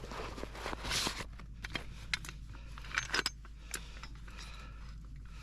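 Snow crunching about a second in, followed by a scatter of light metallic clinks and clicks from gear being handled.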